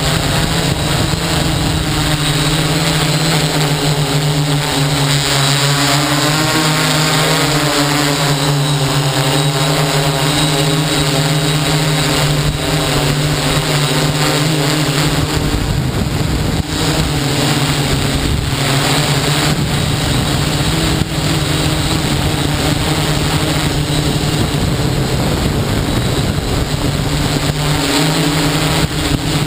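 Hexacopter's electric motors and propellers humming steadily in flight, with the pitch of the hum shifting about halfway through as the motor speeds change.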